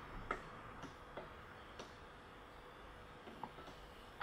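A handful of faint, irregular metallic clicks and taps as a shift fork is worked by hand onto the gear stack of a Peugeot BE4 gearbox during assembly.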